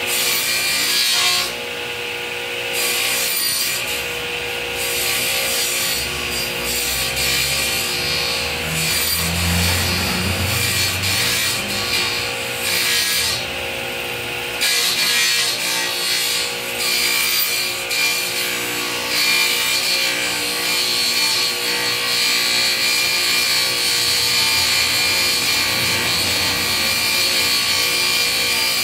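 Sliding table panel saw running, its blade shaving the edge of an MDF disc as the disc is turned on a centre pin against it, trimming the corners off to cut it round.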